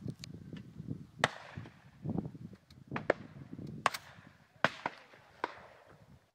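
Several sharp shotgun reports spread over a few seconds, the loudest about a second in with a short ringing tail, over gusty wind noise on the microphone.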